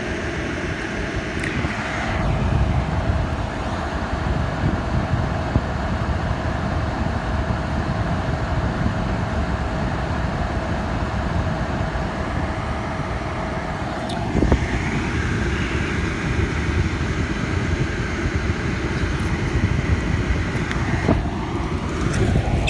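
1986 White Westinghouse 10,500 BTU air conditioner running steadily, its fan blowing and compressor working, with a steady tone that holds for the first half and then drops away. The unit is cooling: its coil is getting cold.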